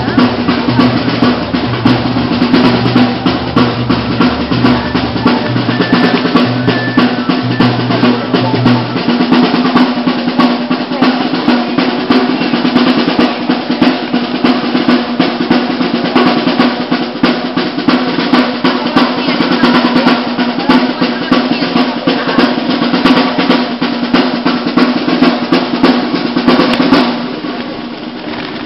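Drums, snare and bass, playing a fast rolling beat with dense rapid strikes. The drumming gets quieter near the end.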